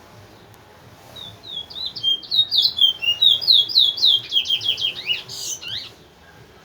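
Towa-towa (seed finch) singing one song phrase: a quick run of sharp, downward-slurred whistled notes that speeds up and grows louder, starting about a second in and ending with a few lower slurs shortly before the end.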